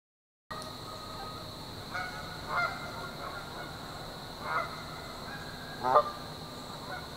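Canada geese honking a few times over a steady high-pitched background buzz, the loudest honk about six seconds in. The sound starts abruptly after half a second of silence.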